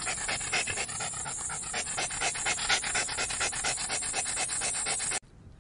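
Siberian husky panting rapidly and hard while running, a fast even train of breaths that cuts off suddenly near the end.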